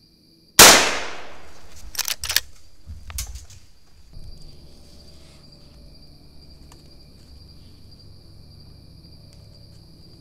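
A single shot from a Henry .22 Magnum lever-action carbine: a sharp crack about half a second in that rings out and fades over about a second. A few sharp clicks follow, around two and three seconds in.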